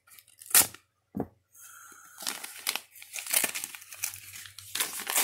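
A white plastic mailer being slit open with a box cutter: two sharp clicks, then steady crinkling and tearing of the plastic from about a second and a half in as it is pulled open and handled.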